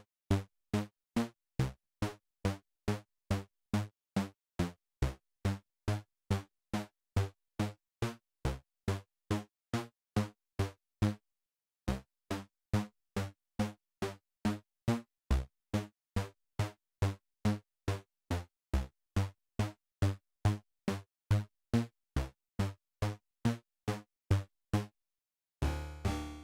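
Sylenth1 software synthesizer playing a melody with a metallic pluck preset: short, fast-decaying pitched notes at a steady pace of about two and a half a second, moving up and down in pitch, with a pause of about a second near the middle.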